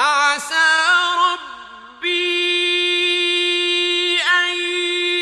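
Male Quran reciter chanting in a melodic style, with added echo. The voice starts suddenly after silence with quick ornamented turns, softens briefly, then holds one long steady high note from about two seconds in, with a short dip in pitch near the end.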